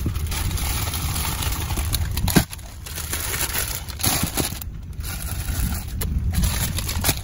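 Plastic snack wrappers crinkling and cardboard boxes scraping and knocking as packs are rummaged out of cartons, with a sharp knock about two and a half seconds in, over a steady low rumble.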